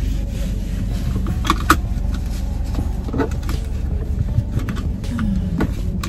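Car engine idling, heard from inside the cabin, as a seatbelt is pulled across and buckled, with a couple of sharp clicks about a second and a half in.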